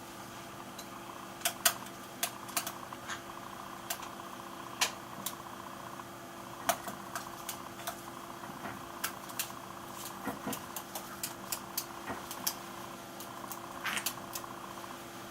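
Washing machine running with a steady hum, with irregular sharp clicks and taps over it.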